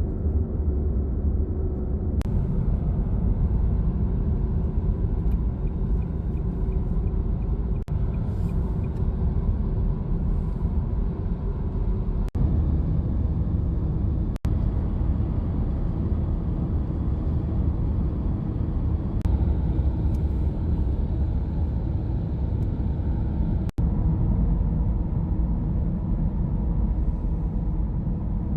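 Steady road and engine noise inside a moving car's cabin, a low rumble. It drops out for an instant a few times.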